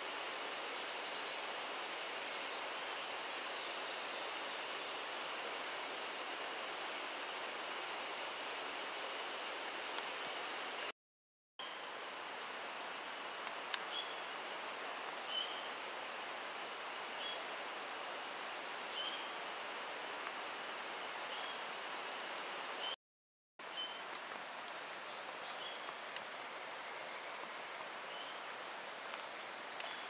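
Steady daytime chorus of rainforest insects, a shrill, continuous high-pitched drone in several bands, with faint short chirps over it. The sound drops out into silence twice for about half a second, once near the middle and again about two-thirds through, where the footage is cut.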